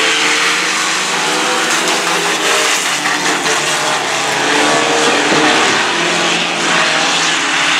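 A pack of Pro 4 dirt-track trucks' four-cylinder engines running hard together around the oval. Several overlapping engine pitches rise and fall as the trucks power through the turn.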